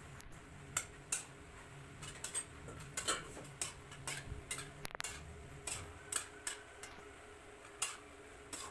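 Metal ladle stirring pasta in an aluminium pot, knocking and scraping against the pot's sides in irregular clinks about once or twice a second.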